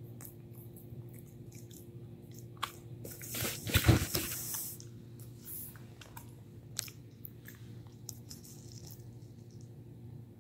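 A puppy gnawing a hard bully stick: scattered crunching clicks of teeth on the chew, with a louder burst of noise about four seconds in.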